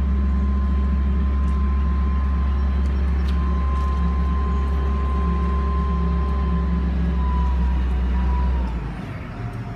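Link-Belt 8065 crane running, a steady low engine hum with a high whine over it. About nine seconds in, the whine falls in pitch and the hum drops away, as the machine slows or stops.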